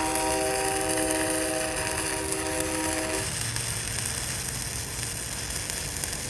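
Stick-welding arc crackling and hissing steadily as a 309 stainless electrode is dragged along a cap bead on carbon steel plate at 70 amps. A steady hum of several tones sounds with it, then stops about three seconds in.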